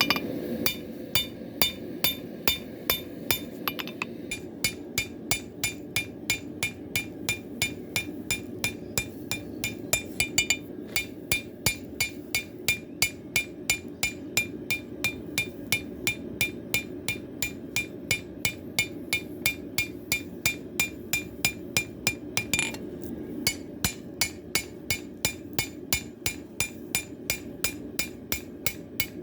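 Hand hammer forging a W2 steel blade on an anvil: a steady rhythm of about three blows a second, each with a bright metallic ring, with a short pause about four seconds in. A steady low rush runs underneath.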